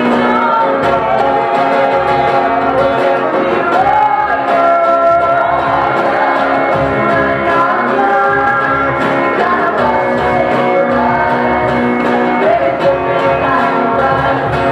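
Live pop cover: a mixed group of singers in several-part harmony into microphones, backed by a cajon and electric guitar.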